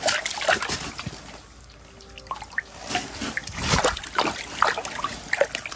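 Water splashing and trickling in a hole through the ice as a hooked herring is pulled up out of it, with a quieter spell about two seconds in.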